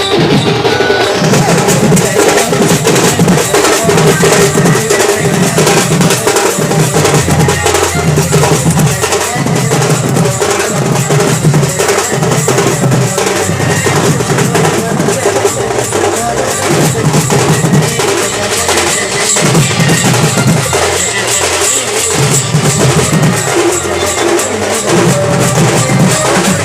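Sambalpuri band music led by loud, dense drumming that keeps going with a steady beat.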